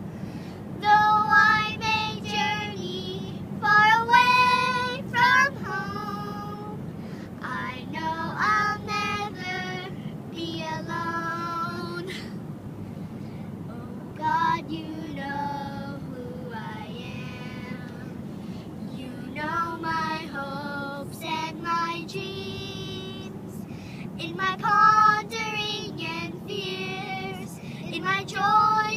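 A high-pitched voice singing in short phrases with pauses between them, with no instruments, over a steady low hum.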